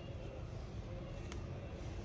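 Low, steady background rumble with one small, sharp click just over a second in.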